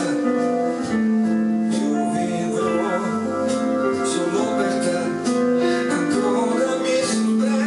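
Instrumental music: a keyboard played in a piano-style passage over sustained chords.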